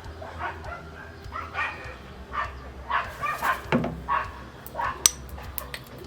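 A dog making short, high calls over and over, about one every half second, with a sharp click about five seconds in.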